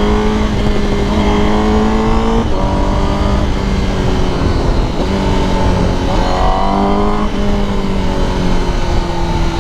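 Honda CBR1000RR-R Fireblade SP's inline-four engine heard while riding at about 80 km/h, a loud screaming note that drops and climbs again a few times as speed and throttle change, with wind rush underneath.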